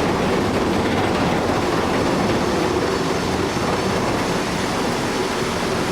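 Heavy machinery running: a steady, loud mechanical rumble with a continuous rattle and clank.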